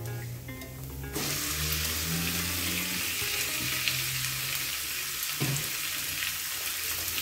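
Diced raw chicken breast dropped into a nonstick frying pan of onions frying in oil: the sizzle jumps up about a second in as the chicken hits the hot oil, then holds steady.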